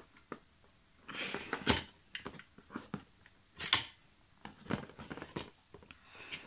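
Handling noise as a motherboard with its CPU cooler is moved about on a cardboard box: rustling and a few sharp clicks and knocks, the loudest a little past halfway.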